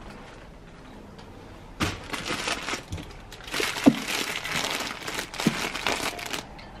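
Thin clear plastic bag of small toy parts crinkling as it is handled, starting about two seconds in, with a few sharp clicks among the crinkling.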